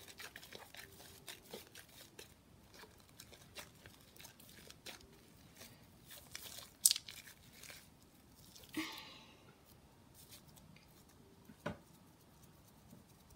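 Fluffy slime being pressed onto a table and pulled off to pick up spilled slime: faint scattered crackles and sticky clicks, with one sharper snap about seven seconds in.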